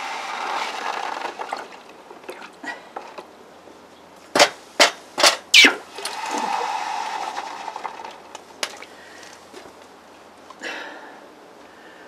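Freshly cast aluminium ingots hissing as they quench in a bucket of water, with four sharp knocks about halfway through as the metal bun tin is rapped to free the ingots, after which the hissing comes back.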